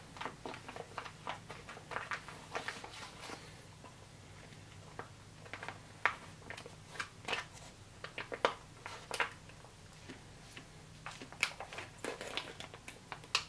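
Crinkling and crackling of an MRE retort pouch being handled and opened: a string of irregular sharp crackles and clicks.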